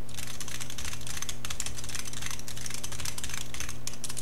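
Fast typing on a computer keyboard, a rapid run of clicking keystrokes with brief pauses, recorded through the Rakk Guinna gaming headset's microphone, which picks up a lot of this unwanted noise. A steady low hum runs underneath.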